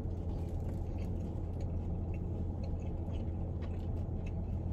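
Steady low hum of a car's air conditioning running inside the cabin, with faint chewing and scattered small clicks of someone eating.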